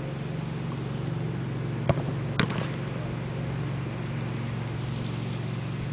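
Two sharp thuds of a football about half a second apart, a shot being struck and then met by the goalkeeper, over a steady low hum.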